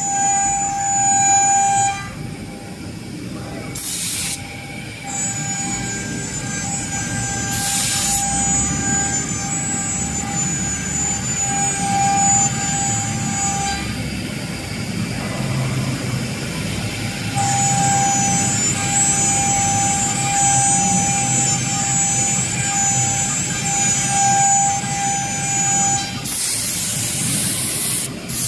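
Twin spindles of a CNC router running with a steady high-pitched whine while cutting a carved pattern into a wood board, over a rumbling cutting noise. The whine drops out for a few seconds around the middle and then returns, and short bursts of hiss cut in a few times, the longest near the end.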